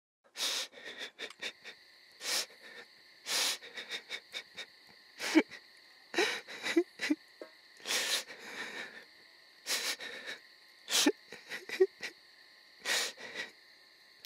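A man sobbing: ragged, gasping breaths and sniffs in irregular bursts, some breaking into short whimpering cries. A steady high-pitched drone runs behind.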